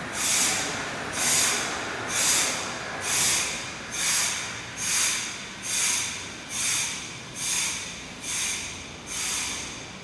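Regular waves in a laboratory wave flume: a hissing rush of water about once a second, eleven in all, each swelling quickly and then fading.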